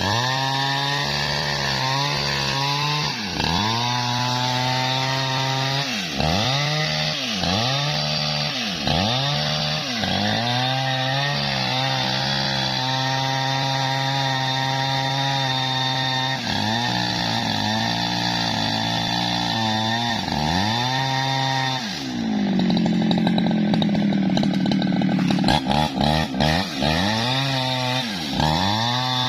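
Jonsered chainsaw ripping through a log of tough bendo wood, the engine's pitch repeatedly dipping under load and recovering about once a second. About two-thirds of the way in it runs lower and steadier for a few seconds, bogged down in the cut, then stutters and revs up again near the end.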